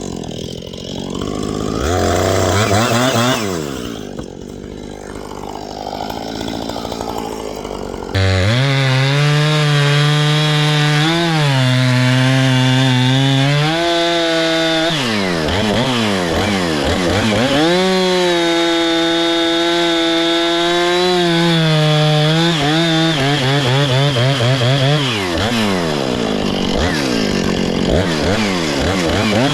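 Two-stroke chainsaw running and cutting wood, the engine pitch repeatedly dipping and climbing back as the throttle works and the chain loads in the cut. It gets abruptly louder about eight seconds in.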